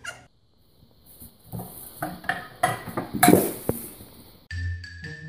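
Clattering knocks and glassy clinks of a toppled Christmas tree and its ornaments, loudest a little over three seconds in. Light marimba-like music starts near the end.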